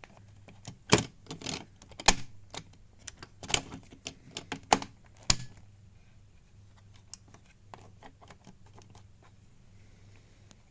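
Number drums of a Rimowa TSA combination lock being turned by hand: a run of irregular clicks, louder in the first half, then thinning to faint ticks.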